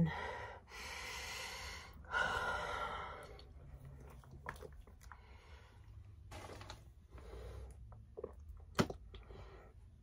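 A person gulping carbonated soda straight from a plastic bottle, with swallowing and breathing noises. A single sharp click comes near the end.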